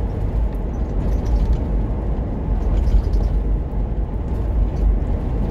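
Steady low rumble of a car driving along a suburban street, heard from inside the cabin: road and engine noise with no sudden events.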